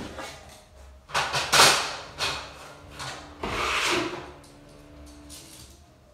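A few knocks and clatters on an aluminium stepladder as it is climbed, then about three and a half seconds in a wallpaper smoothing tool swishing across the paper on the wall for under a second, followed by quieter rubbing.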